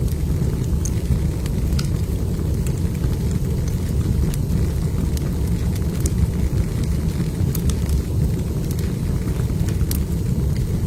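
Log fire burning in a fireplace: a steady low rumble with scattered sharp crackles and pops.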